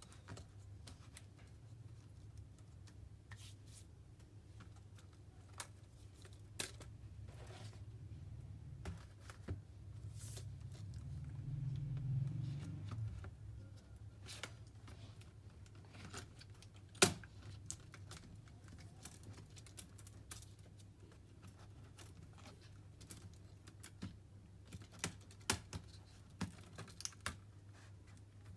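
Light clicks and taps of plastic and metal HP EliteBook 840 G3 laptop parts being handled, over a steady low hum. A low rumbling swell comes around the middle as the top case is lifted, a single sharp click a little past halfway is the loudest sound, and the clicks come quicker near the end.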